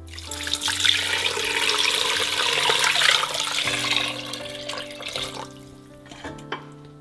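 Water poured from a plastic jug into the inner pot of an electric cooker, splashing onto chunks of raw beef. The pour is strongest in the first few seconds, then thins and stops about five and a half seconds in.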